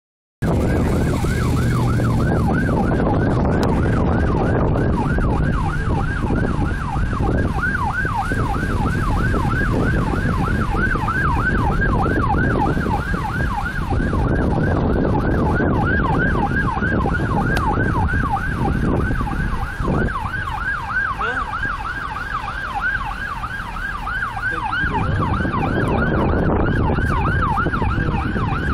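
Emergency vehicle siren on a fast yelp, its pitch sweeping up and down a few times a second without a break, over a steady low rumble.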